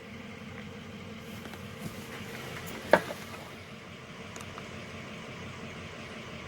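Steady low background hum with a single sharp click about three seconds in, and a fainter click a second before it.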